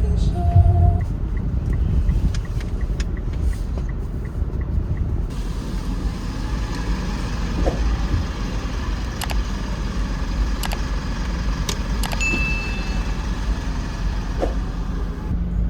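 Steady low rumble of car traffic. A run of light ticks comes in the first few seconds, with scattered clicks and a short high beep about twelve seconds in.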